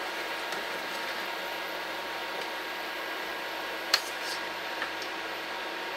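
Stewing steak and vegetables sizzling steadily in a Remoska Tria pan on an induction hob, with a faint steady hum underneath. A stirring spoon taps sharply against the pan about four seconds in, and lightly again a second later.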